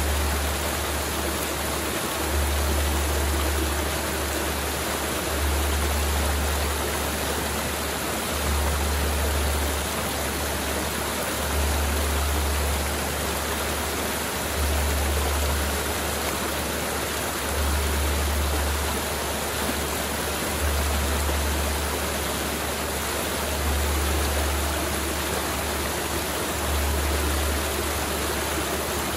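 Mountain river water rushing steadily over rocks, with a low rumble that swells and fades about every three seconds.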